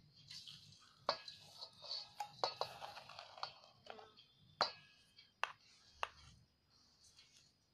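Bura (powdered sugar) poured from a steel katori into a steel bowl of semolina: a soft hiss of the pouring sugar in the first half, with about six sharp taps of the steel katori against the bowl.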